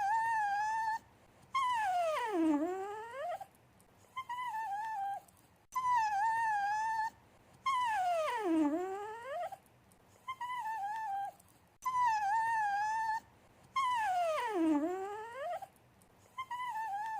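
A dog whining for attention: short high wavering whines alternating with a longer whine that slides down steeply in pitch, the same sequence repeating three times.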